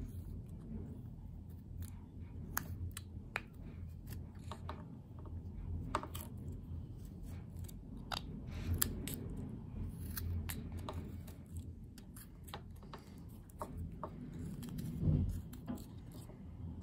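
Small whittling knife slicing into a wooden block by hand, a run of irregular short, sharp cutting sounds as chips come away. A dull thump near the end.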